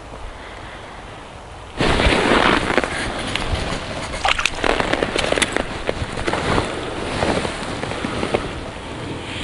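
Wind buffeting the microphone, with rustling and crackling handling noise from clothing and hands. It starts abruptly about two seconds in, after a quieter steady hiss.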